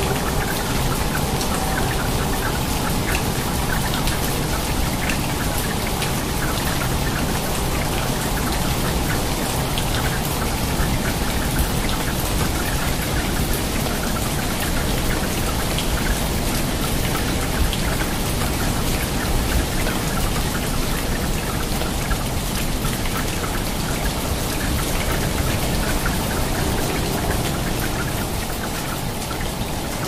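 Rain falling steadily on a water surface: a dense, even patter of drops splashing.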